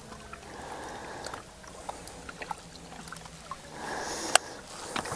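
Water lapping quietly against a fishing boat's hull, with scattered faint clicks and one sharp click about four seconds in.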